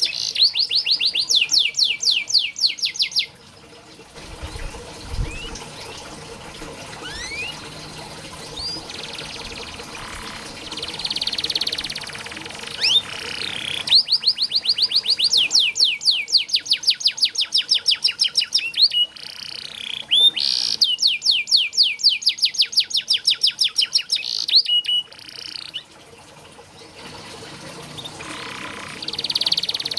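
Domestic canary singing: bouts of fast trills, each a few seconds long, near the start, through the middle and again at the end. Between the bouts come quieter chirps and short rising whistles.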